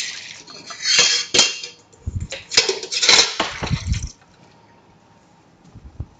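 A utensil scraping and clinking against a stainless steel bowl as barbecue sauce is scraped out, with a few dull knocks of dishware on the counter. It stops about four seconds in.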